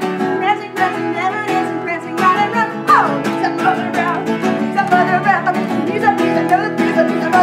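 Acoustic guitar strummed at a brisk, even beat, with wordless vocal sounds over it, including one sliding down in pitch about three seconds in.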